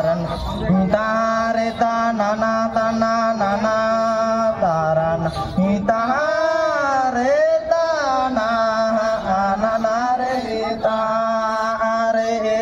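Chant-like singing on long, held notes over a constant low drone, the melody bending up and down in the middle; no drumbeats stand out.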